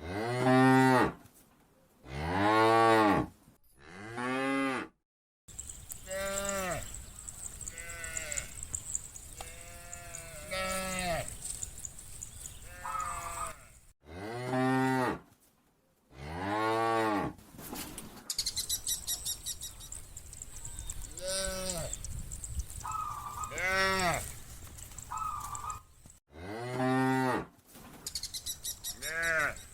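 A herd of cattle mooing, call after call: several loud, close moos and many fainter ones from cows further off, each moo rising then falling in pitch. A faint steady high tone runs under most of it.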